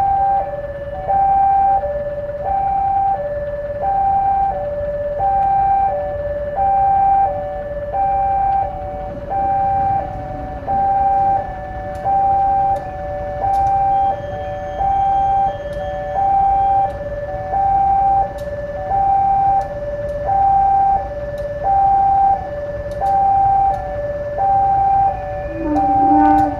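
Railway level-crossing warning alarm: an electronic two-tone signal that alternates high and low about once a second and keeps going without a break, warning that a train is crossing.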